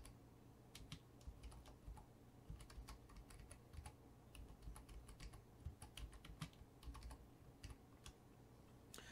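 Faint typing on a computer keyboard: irregular keystroke clicks, several a second, with short pauses between bursts.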